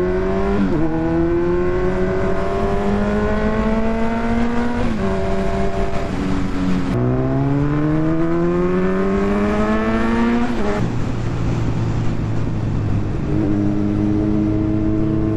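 Kawasaki Z900's inline-four engine accelerating through the gears. Its pitch rises and drops back at each upshift, about four times, then holds steady at cruising speed near the end.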